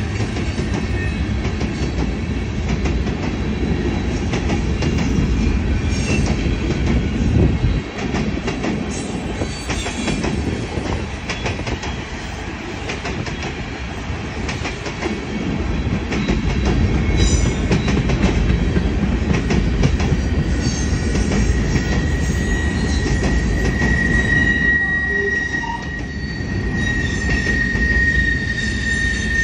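Freight train of tank cars and empty centerbeam flatcars rolling past at close range: a steady heavy rumble with clatter from the wheels. About two-thirds of the way through, a high steady squeal sets in and grows louder toward the end.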